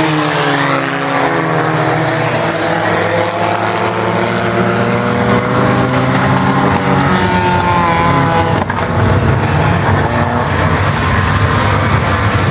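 A pack of IMCA Sport Compact race cars running hard on track, their four-cylinder engines overlapping. Several engine notes rise and fall as the cars accelerate and lift through the turns.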